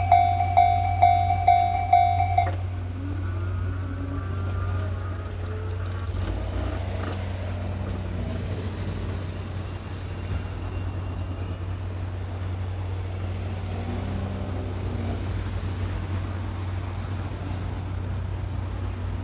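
Japanese level-crossing warning bell ringing with even strikes, about two a second, stopping about two and a half seconds in. Then a steady low hum of road-vehicle noise.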